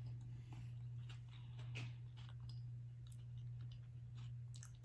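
Soft chewing and wet mouth clicks close to the microphone as food is eaten, with scattered faint clicks over a steady low electrical hum.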